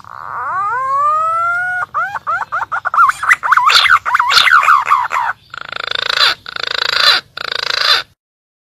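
Green pigeon (punai) calling: a long rising whistle, then a fast run of warbling whistled notes, then three harsh rasping bursts that stop shortly before the end.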